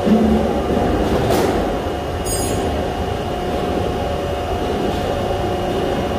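Steady hum and rumble of heavy machinery in a sheet-metal fabrication shop, with a brief high-pitched squeal about two seconds in.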